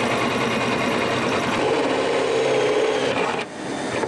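Green Bosch cordless drill running under load, boring a hole. Its motor sound is steady, with a short dip about three and a half seconds in.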